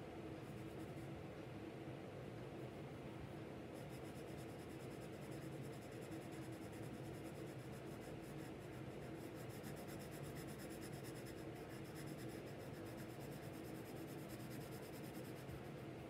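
Graphite pencil shading on drawing paper: a faint, continuous scratch of back-and-forth strokes.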